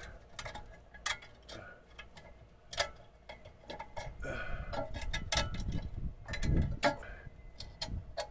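Irregular small metallic clicks and taps as a nut, washers and bolt are handled against a steel step bracket while the nut is threaded on by hand. A low rumble comes in about two-thirds of the way through.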